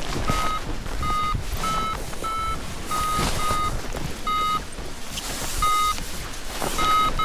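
Paragliding variometer beeping: short beeps of one steady pitch, about one a second at an uneven rate, over wind rushing on the microphone.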